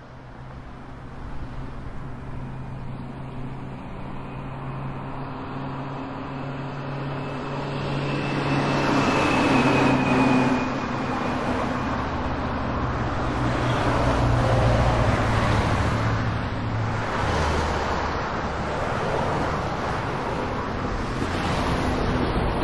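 GO Transit bilevel commuter train rolling in past the platform, cab car leading. A steady engine hum comes first. From about a third of the way in, a growing rumble of the train on the rails takes over, with a brief high squeal along the way.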